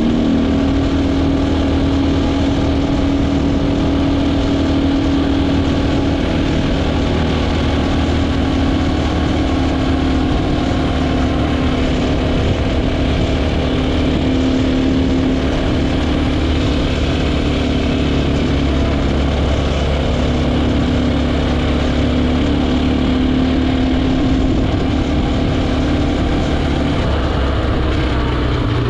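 KTM 450 EXC's single-cylinder four-stroke engine running steadily under way, heard onboard with wind and road rush; the engine note wavers and drops near the end as the throttle eases.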